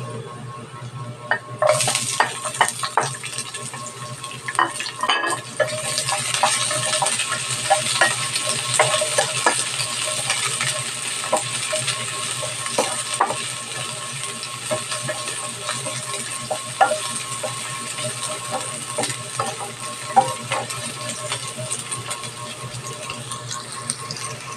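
Garlic and sliced red onion sizzling in hot oil in a nonstick frying pan, stirred with a spatula that scrapes and taps against the pan. The sizzle grows louder about two seconds in.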